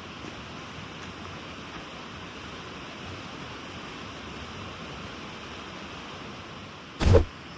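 Steady rushing noise, with one loud heavy thump about seven seconds in.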